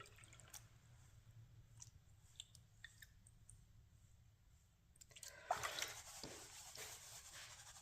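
Mostly near silence with a few faint clicks, then about five seconds in faint water sloshing and small gravel clicks as paydirt is worked in a gold pan.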